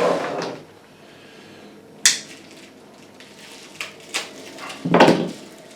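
Package wrapping being handled and torn open: crinkling and crackling paper or plastic, with a sharp crack about two seconds in, a few small clicks and a louder tearing rustle near the end.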